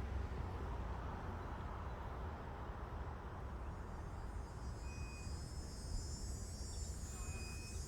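Insects singing in the trees: a high, steady buzz that comes in about halfway through and holds. A low rumble runs underneath, and two short high chirps sound, one near the middle and one near the end.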